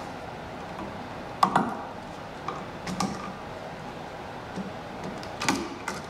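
A few sharp small clicks and metal taps of pliers and copper wire being handled as a wire is curled and hooked onto a light switch's brass terminal screw, the loudest about a second and a half in.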